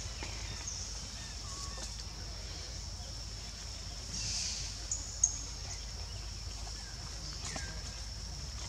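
Steady, high-pitched insect drone of outdoor forest ambience, with a few short squeaky calls, one falling in pitch near the end, and a single sharp click about five seconds in.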